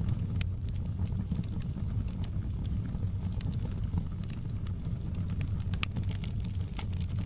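Wood fire burning in a fireplace: a steady low rumble of flames with sharp, irregular crackles and pops from the burning logs.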